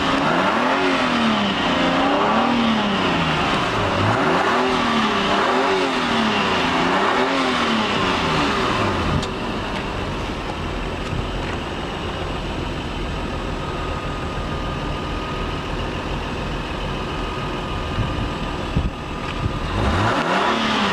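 Car engine being revved repeatedly, rising and falling in pitch about five times over the first nine seconds, then running steadier and somewhat quieter until another rev begins near the end.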